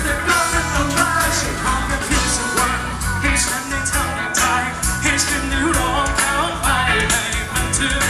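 Live band playing a song, drum kit and amplified instruments, with male vocalists singing into microphones through the PA.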